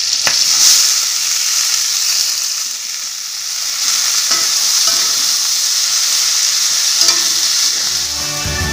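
Vegetables stir-frying in hot oil in a wok: a steady sizzle, with a few light knocks of the spatula against the pan. Music comes in near the end.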